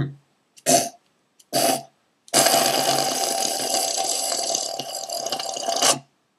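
A man's voice, after two brief short sounds, letting out one long raspy yell of nearly four seconds.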